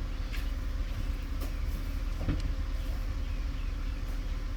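1999 Acura CL's engine idling steadily, a low even rumble, with a few faint clicks.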